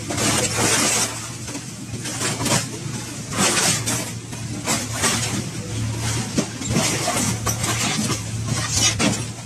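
Excavator's hydraulic demolition claw tearing and crushing scrap metal: repeated crunches, scrapes and clanks, over the steady low hum of the machine running.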